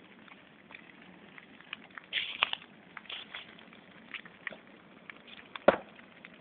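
A tractor on fire crackling, with scattered sharp pops; the loudest pop comes near the end.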